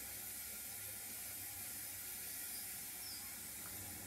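Faint steady hiss of room tone, with no distinct event.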